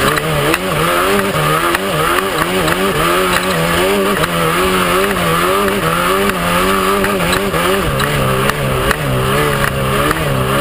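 Off-road race truck engine running hard, its pitch wavering up and down quickly and continuously as the throttle works, over loud driving noise.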